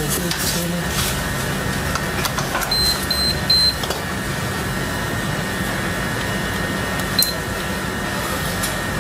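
Thermex IF 50V water heater's electronic control panel beeping on power-up, three short high beeps in quick succession, then a single beep about seven seconds in as a button is pressed. The beeps show the panel working with its newly fitted electrical block, under a steady background hum.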